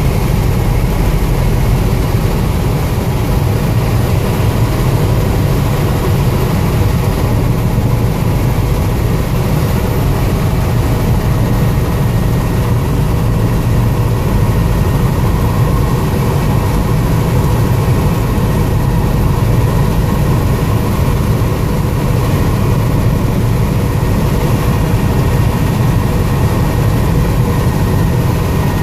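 Helicopter engine and rotor heard from inside the cabin in steady cruising flight: a loud, even drone, heaviest in the low range, with a few thin steady tones above it.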